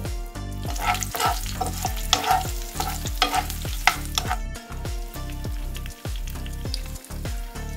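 Metal spoon stirring peanuts, dal and chillies frying in hot oil in a frying pan, clicking and scraping against the pan for about the first four seconds over a steady sizzle; then the sizzle carries on without stirring.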